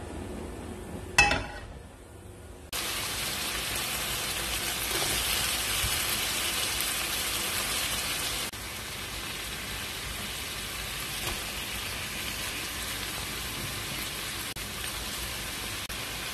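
A sharp knock about a second in, then bacon and thin carrot strips sizzling in a frying pan. The sizzle starts suddenly a few seconds in and stays steady.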